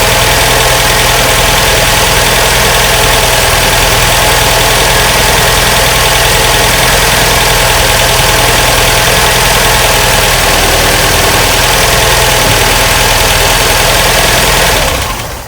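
MGB four-cylinder engine idling steadily, running lumpily, which the owner takes for it not firing properly on all four plugs. The sound dies away near the end.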